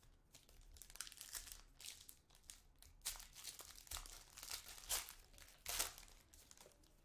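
Foil trading-card pack wrapper being torn open and peeled off the cards by hand: a run of irregular crinkles and crackles.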